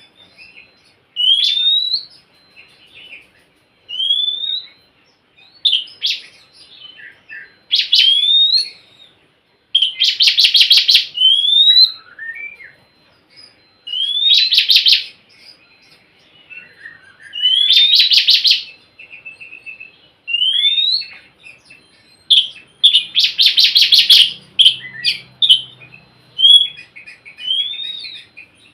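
Oriental magpie-robin (kacer) singing: short rising whistled notes repeated every second or two, broken by several loud, harsh rasping bursts.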